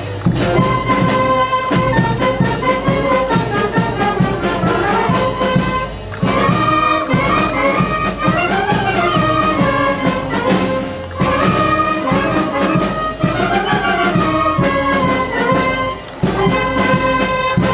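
Brass band playing a lively dance tune, with trumpets carrying the melody over a steady beat. The melody breaks off briefly between phrases, about every five seconds.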